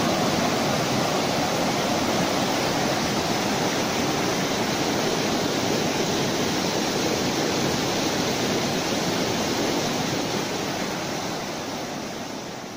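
Muddy floodwater rushing over a dam and churning downstream in a steady, loud torrent. It fades away near the end.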